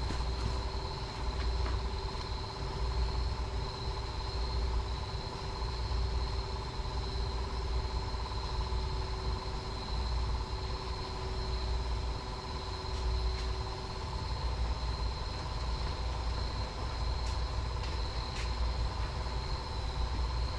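Metal-melting furnace running steadily while brass melts: a low, pulsing rumble with a steady whine over it and a few light clicks.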